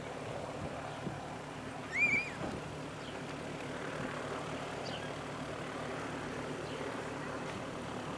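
Gyroplane's engine and pusher propeller droning steadily in flight overhead, with a single short high chirp about two seconds in.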